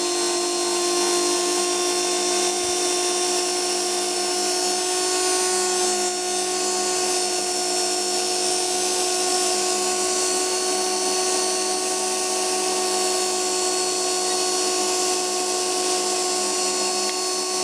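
Small brushed motor running at a steady high speed on a microwave-oven-transformer supply: a steady whine at one pitch over a harsh hiss. Its commutator has been deliberately damaged and is overheating.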